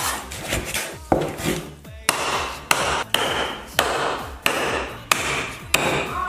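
Heavy cleaver chopping through bone-in pork on a wooden stump chopping block: about eight sharp strikes, roughly one every two-thirds of a second, starting about a second in.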